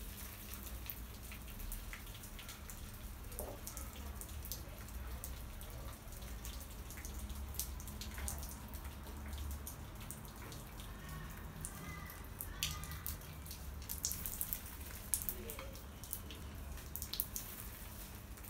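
Water dripping and splattering irregularly onto a tiled balcony, washed down from the balcony above, with sharper splashes coming thicker about two-thirds of the way in. A low steady rumble runs underneath.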